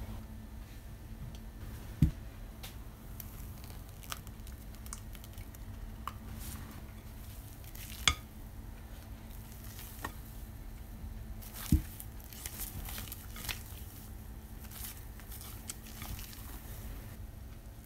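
Spatula stirring and folding thick, airy chocolate cake batter in a glass bowl: soft squishing and scraping with small clicks, and three sharp knocks about two, eight and twelve seconds in.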